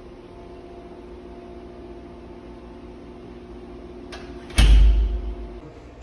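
Door swinging shut under a hydraulic commercial door closer, then latching against the frame with a loud thump about four and a half seconds in, a light click just before it. This is a test close after the closer's latching speed was turned up a little.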